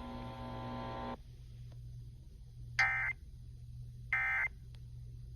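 Emergency Alert System end-of-message (EOM) data bursts sent over the radio: two short, identical digital warbling bursts about 1.4 seconds apart, marking the end of the alert. Before them, a steady buzzing tone cuts off about a second in, and a low steady hum runs underneath.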